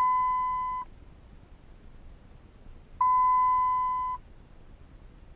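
Two long electronic beeps at a single steady high pitch: the first, already sounding, stops just under a second in, and the second starts about three seconds in and lasts about a second, while the tuner is being programmed with the ignition on.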